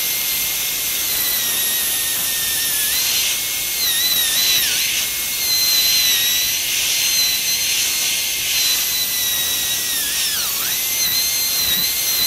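Dental handpiece with a diamond bur whining steadily while it cuts the functional cusp bevel on a typodont molar, with a hiss behind the whine. The pitch dips briefly a few times, most clearly about four and a half and ten and a half seconds in.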